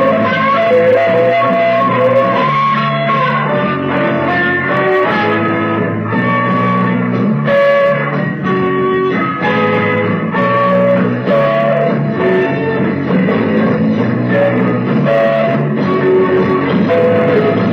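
Guitar-led instrumental rock passage from an early-1970s Argentine rock band recording, with sustained guitar notes over a steady bass line and no vocals.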